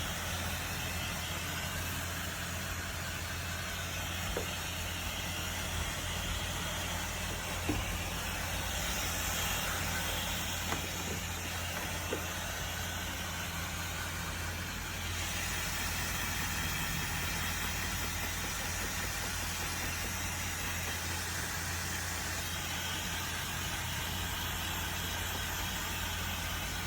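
Hair dryer running steadily: a constant low motor hum under a broad rush of blown air, with a few faint clicks.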